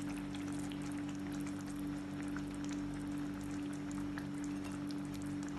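Thick egg gravy simmering in the pan with faint, scattered small pops and bubbles, over a steady low hum.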